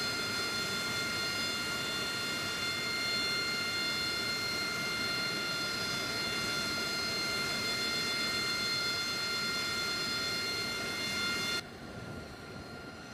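AV-8B Harrier jet's engine running at idle on the ground: a steady whine of several high tones over a rushing noise. About eleven and a half seconds in it cuts abruptly to a quieter version of the same steady jet sound.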